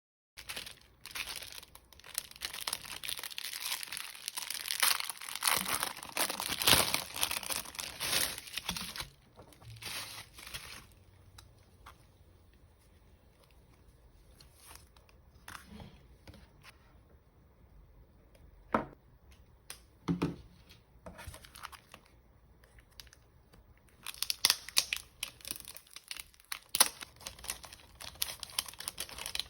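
Packaging being torn open and crinkled during an unboxing, busy for the first nine seconds or so. After that it is quieter, with a couple of sharp taps, and the crinkling starts up again near the end.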